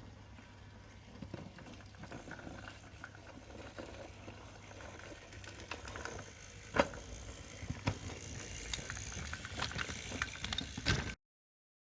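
Motorised toy train running on a plastic toy track: a faint motor whir with scattered clicks and taps that grows louder, with a sharper click about seven seconds in.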